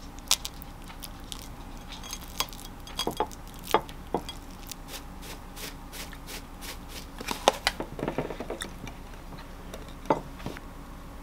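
Kitchen handling sounds while a toast is finished: a few light knocks of a spoon and hands on a plate, then a run of small even ticks, about four a second, as a jar of dried parsley is shaken over the toast. Near the end, clinks and a knock as a glass of ice water is set down on the counter.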